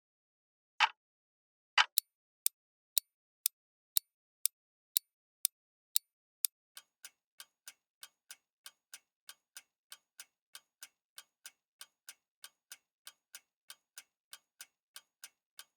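Clock ticking in three even, steady paces. It starts at about one tick a second, then about two seconds in switches to a sharper tick twice a second. Around the middle it changes to a quieter, faster ticking of three to four ticks a second.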